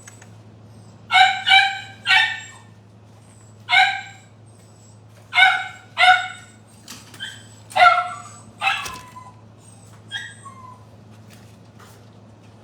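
A dog barking: about eight short, high-pitched barks, several in quick pairs, with fainter ones near the end, over a steady low hum.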